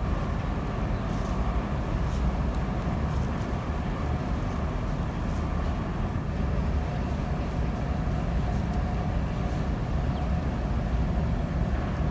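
Steady low rumble of outdoor background noise, with a few faint brief ticks now and then; no distinct animal calls stand out.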